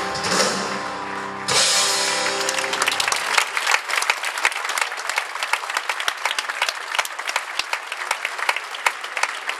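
A live pop-rock band ends a song on a held chord that rings out with a crash about a second and a half in and fades by about three seconds. The audience then applauds.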